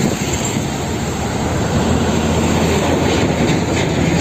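Heavy trucks driving on a highway, including a concrete mixer truck: a steady rumble of engines and tyres on the road.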